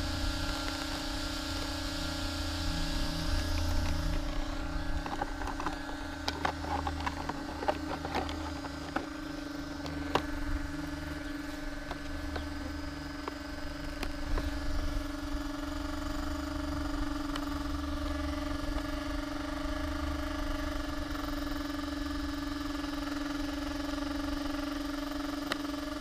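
Steady electric whine and hum from a powered-up Arrma Typhon RC buggy sitting still, not being driven. Wind rumbles on the microphone, with a few light clicks and knocks about five to ten seconds in.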